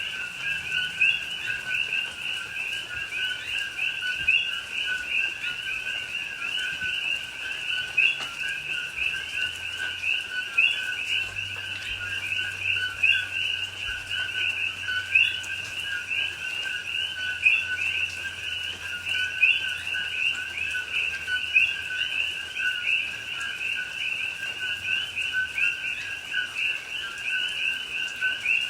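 Dense chorus of common coqui frogs, many calling at once and overlapping: each two-note "co-qui" call is a short lower note followed by a higher rising note, repeated steadily without letting up.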